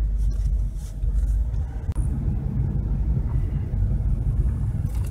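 Ford car driving at low speed, heard from inside the cabin: a steady low rumble of engine and road noise.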